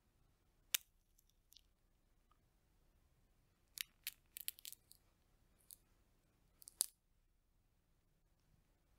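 Roasted chestnut shells cracking and snapping under the fingers as they are peeled. There is a sharp crack about a second in, a cluster of small crackles around four seconds in, and another sharp crack near seven seconds, with quiet between them.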